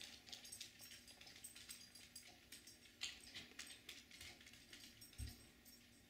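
Faint, irregular ticking and tapping, several times a second: red-bellied woodpeckers pecking at a suet cake held in a wire suet cage. A soft low thump about five seconds in.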